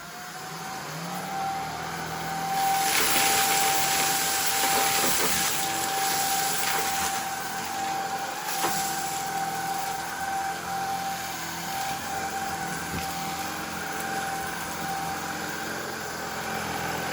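Shark IZ320UK cordless stick vacuum switching on in standard mode: its motor spins up to a steady high whine and runs on. A few seconds in, a louder rush of air lasts about six seconds, then the whine carries on steadily.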